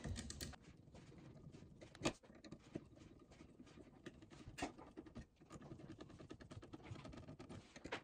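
Screwdriver driving the mounting screws of a wall outlet into its electrical box: faint, rapid small clicks and scrapes of metal, with a few sharper clicks, the loudest about two seconds in.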